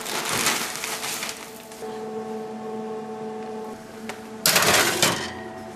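Plastic bag crinkling as chicken pieces are tipped out onto a metal baking sheet, then, about four and a half seconds in, a loud half-second scrape as the baking sheet slides onto the oven rack. A steady hum runs beneath from about two seconds in.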